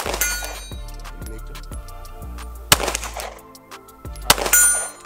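Three sharp gunshots, the second under three seconds after the first and the third about a second and a half later, over background music with a steady bass line.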